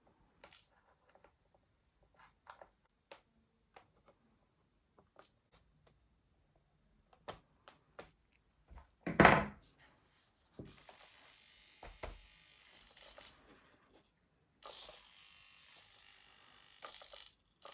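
Small clicks and taps of handling a foam model's flap linkage, then a single thump about nine seconds in. This is followed by two stretches of a small electric motor buzzing for about two and a half seconds each: servos driving the flaps, being checked for equal deflection.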